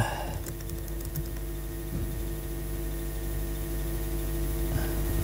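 A few faint laptop keyboard keystrokes over a steady electrical hum.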